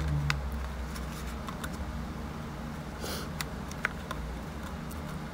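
Small clicks and taps of tools and phone parts being handled while a smartphone is opened up, with a brief scraping hiss about three seconds in, over a steady low hum.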